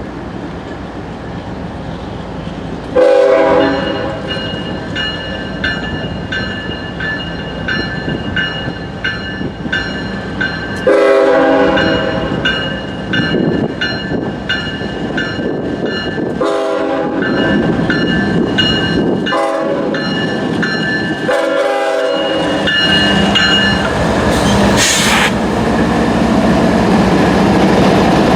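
Norfolk Southern diesel locomotive's air horn played as a horn show: loud chords starting about 3 s in and several more times, chopped into strings of quick short toots between longer blasts. Underneath, the passing train's steady rumble and wheel clatter grow louder toward the end.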